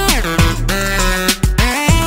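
Background music with a beat, a strong bass and sliding notes.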